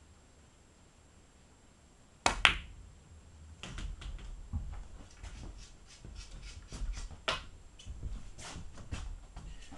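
Pool cue striking the cue ball with a sharp click, followed about a quarter second later by the clack of the cue ball hitting an object ball. For several seconds after that come lighter clicks and knocks over a low rumble as the balls roll and settle on the table.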